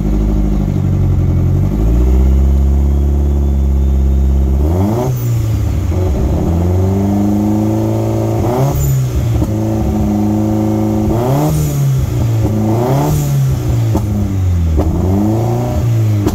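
Nissan SR20DET turbocharged four-cylinder engine idling steadily, then revved up and back down about five times in the last ten seconds. It is running on a newly installed Megasquirt ECU.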